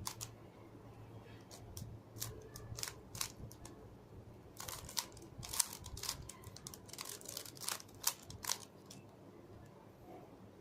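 Plastic Rubik's cube being turned layer by layer: a run of sharp, irregular clicks, sparse at first and coming in quick clusters from about the middle.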